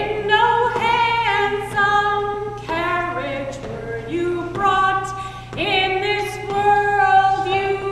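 A woman singing solo and unaccompanied, in long held notes that slide from one pitch to the next, over a steady low hum.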